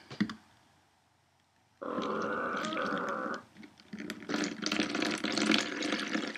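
Water pouring from a glazed ceramic pitcher into a plastic jug holding Soylent powder: a steady stream starting suddenly about two seconds in, then rougher, uneven splashing as the jug fills.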